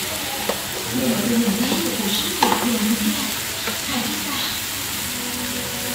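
Grass carp cooking in a pan covered by an upturned aluminium basin on a gas stove: a steady sizzling hiss. There is one short tick a little before halfway.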